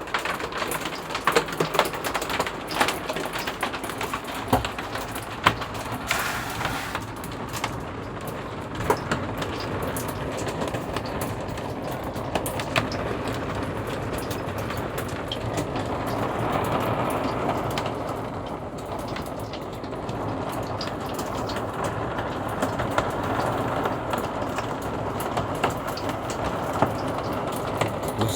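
Heavy hailstorm with large hailstones, said to be like golf balls: a steady rain-like roar studded with many sharp cracks of single stones striking, swelling a little in strength past the middle.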